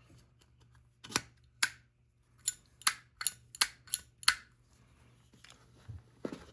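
Sharp metallic clicks of Zippo lighters being handled: two clicks, then a quick run of six at about three a second, with a couple of fainter ones near the end.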